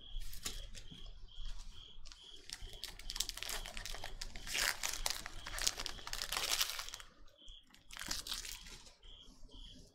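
Foil trading-card pack wrappers crinkling and rustling as they are handled and the cards are slid out. A house cricket chirps steadily about three times a second behind it, pausing briefly near the end.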